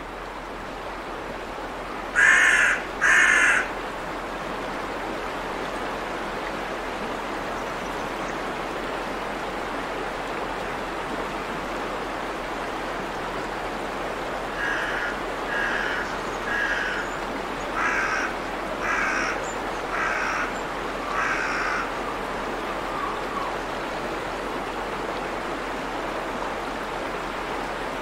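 Water rushing steadily over a river weir. A bird calls loudly twice a couple of seconds in, then about seven fainter calls follow, roughly one a second, around the middle.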